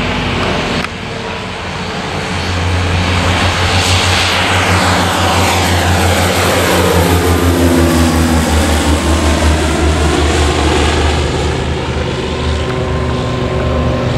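Antonov An-28 twin-turboprop at take-off power, lifting off and climbing past overhead: a low, pulsing propeller drone with a turbine whine whose pitch falls as the aircraft goes by, then easing off as it climbs away.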